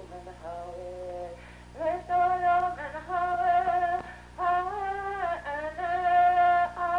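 Background music: a slow melody of long held notes that waver slightly in pitch, over a steady low hum.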